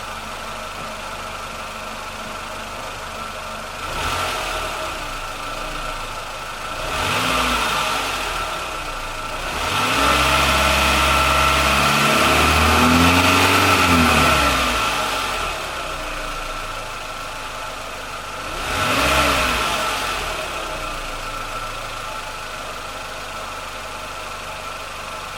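Renault Logan 1.6 MPI four-cylinder engine idling and revved: short blips about 4, 7 and 19 seconds in and higher revs held for several seconds in the middle. A steady whistle runs over the engine the whole time. The owner suspects a whistling pulley roller, a misfire or the valves.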